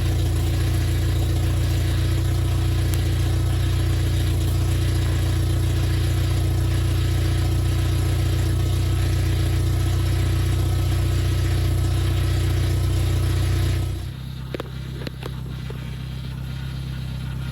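Freshly rebuilt Toyota 22RE 2.4-litre four-cylinder engine running steadily at high idle on its first start-up, exhausting through a short Cherry Bomb muffler. About fourteen seconds in the sound drops in level and turns duller, with a few light clicks.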